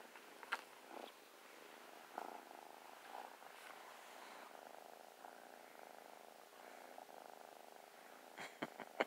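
Tabby kitten purring steadily. A few short clicks and rustles from handling sound in the first couple of seconds, and two sharp clicks come near the end.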